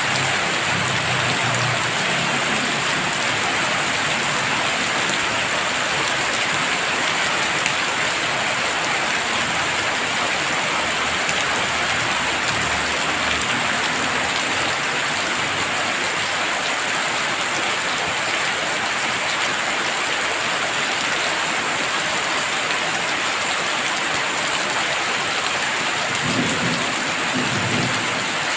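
Heavy rain falling steadily in a dense, even hiss, with low rumbles now and then, near the start, midway and near the end, like distant thunder.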